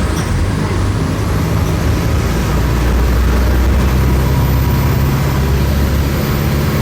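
Mercedes-Benz OM-904LA four-cylinder turbodiesel of an OF-1418 bus running under load, with a steady low note. A high whine drops sharply right at the start, as the revs fall, then rises steadily as the engine gains speed.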